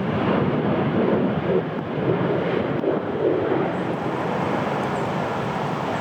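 Jet airliner engine noise mixed with strong wind buffeting the microphone, swelling slightly in the middle.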